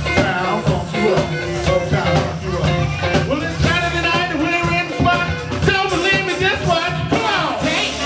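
Live band playing with a steady beat: singers over electric guitar, keyboards and drums.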